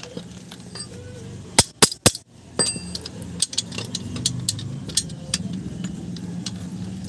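Metal clicks and clinks of drum-brake shoe hardware (shoe, adjuster and cable) being handled and worked apart by hand, with a few sharp knocks about two seconds in. A steady low hum runs underneath.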